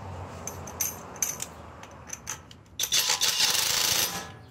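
Topshak 1/2-inch cordless impact wrench running on its lowest power setting for about a second and a half near the end, driving a new wheel bolt in. A few light clicks and knocks come before it.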